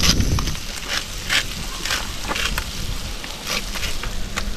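Coral trout fillets sizzling in butter in a frying pan, with the crackling clicks of a salt grinder being twisted over the pan, about two a second.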